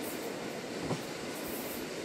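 Inside a JR Hokkaido Lilac limited express carriage running along the line: the steady rumble and rush of wheels on rails, with a light knock about a second in.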